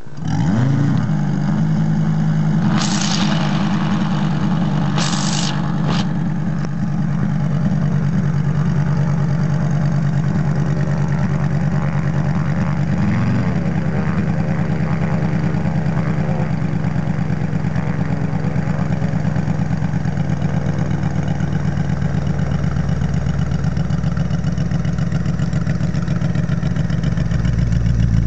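A model radial engine on a large RC biplane, hand-started by flipping the propeller, catches almost at once and settles into a steady idle with the propeller turning. It revs up and back down briefly about 13 seconds in. Two short hisses come about three and five seconds in.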